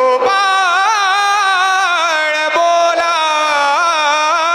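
Indian folk-devotional group music: a male voice draws out one long melodic line, sliding and ornamenting it without a break and settling onto a steady held note near the end, with two light drum strokes about two and a half to three seconds in.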